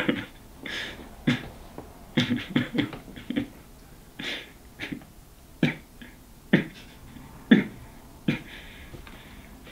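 A man's stifled laughter: short breathy snorts and chuckles through the nose and mouth at irregular intervals, about one a second.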